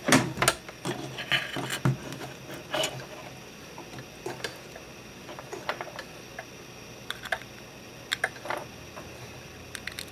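Hands handling a Raspberry Pi board and its cables on a wooden desk: scattered small clicks and light knocks, busiest in the first three seconds, then sparse single clicks as the micro-USB power plug is brought to the board.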